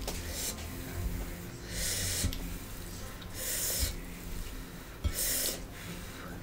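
A person's airy breaths, four of them about a second and a half apart.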